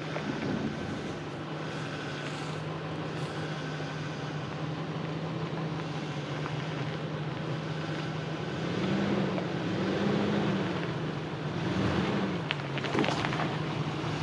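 Ford Ranger pickup's engine running at a slow crawl, holding a steady low note with three brief revs as the truck climbs over the rough track. A few clicks and crunches come near the end.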